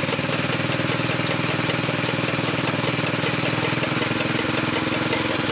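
Small petrol engine running steadily with a fast, even beat while it drives a chaff cutter's flywheel chopping green fodder.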